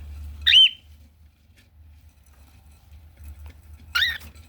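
Cockatiel giving two short, high chirps about three and a half seconds apart, the first the louder.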